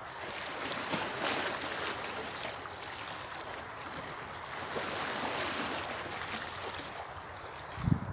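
Sea water washing and sloshing around shoreline rocks, swelling and easing twice. A short low thump near the end.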